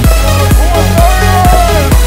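Electronic dance music with a steady kick drum, about two beats a second, and a synth line that bends up and down through the middle.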